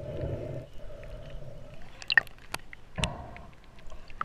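Underwater sound picked up by a camera in its housing: faint scattered sharp clicks over a low hum, with a dull knock about three seconds in.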